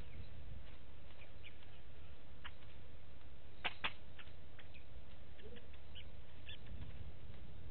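Bush ambience: a steady low rumble with scattered faint short bird chirps, and two sharp clicks close together a little past the middle.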